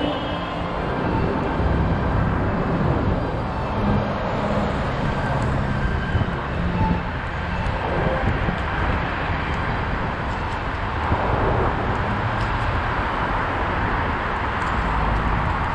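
Oxelo scooter wheels rolling steadily over sidewalk paving tiles, with wind on the microphone and city traffic running alongside.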